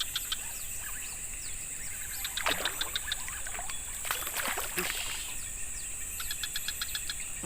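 Tropical forest-edge ambience: a steady high-pitched insect drone with runs of rapid chirping ticks, and a few brief noisy rushes around the middle.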